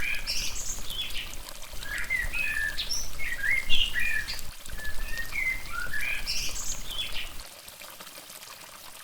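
A songbird singing quick chirps and whistles, a phrase of them heard twice, over a low steady rushing noise that fades out near the end.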